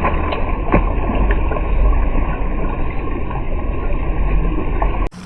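Kayak moving on the water: steady rushing and splashing of water along the hull under a heavy low rumble, with a couple of faint light knocks. The sound cuts off suddenly near the end.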